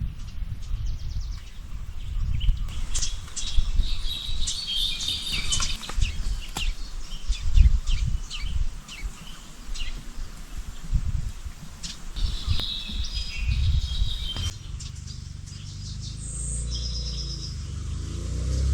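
Birds chirping and calling over an uneven low rumble. About three-quarters of the way through, the sound changes abruptly to a steady low engine hum that grows towards the end, typical of a motorcycle running.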